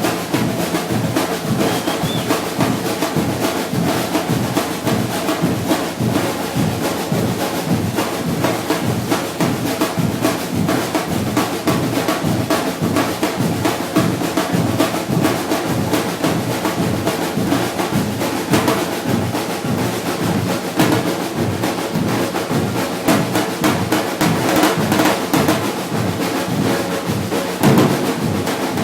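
Batucada percussion group playing a steady, dense rhythm together on drums.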